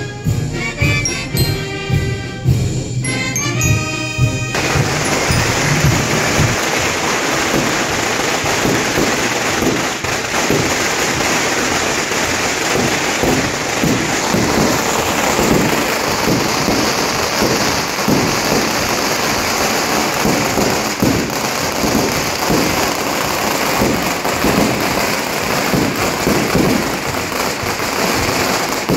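Procession band music breaks off about four seconds in. It is followed by a long string of firecrackers crackling rapidly and without pause.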